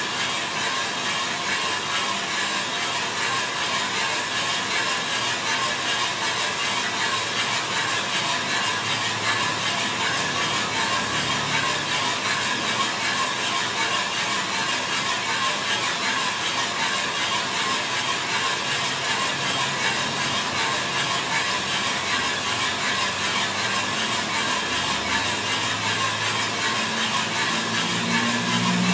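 Small drum coffee roaster running mid-roast, coffee beans tumbling in the turning drum: a steady, even rattle and rush.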